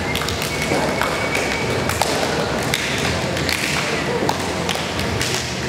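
Hands slapping together in a string of high-fives, many sharp slaps one after another, over the chatter of voices in a reverberant hall.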